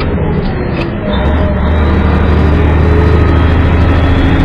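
Semi truck's diesel engine running while the truck drives through traffic, heard from inside the cab: a loud, deep, steady hum that settles into an even note about a second in.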